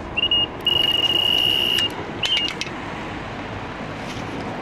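Electronic carp bite alarm sounding: a short beep, then a continuous high tone for about a second, then one more short beep with a few clicks, as line is pulled off on a run.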